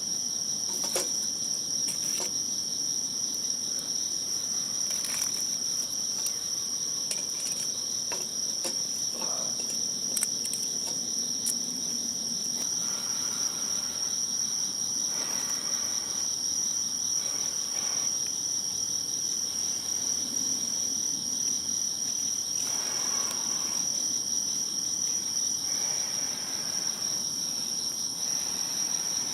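A steady, high-pitched chorus of crickets trilling without a break, with a few faint clicks here and there.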